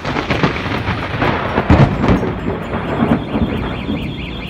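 A thunderclap: a loud crackling rumble that starts suddenly, is loudest about two seconds in, and trails off.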